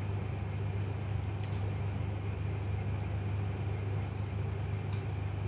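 A steady low hum of room background noise, with three faint light clicks spread across it.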